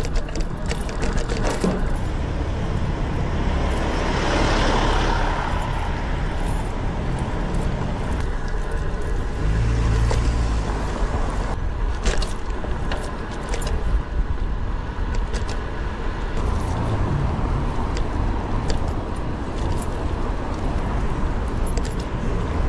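Wind rumbling on the camera microphone of a moving road bike, with street traffic passing and scattered sharp rattles and clicks from the bike going over bumps in the pavement.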